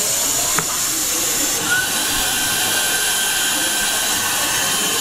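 Suction-cup candy prize machine's vacuum blower hissing steadily as the suction head goes down onto the candy packets, with a sharp click about half a second in and a thin high tone coming in a little under two seconds in.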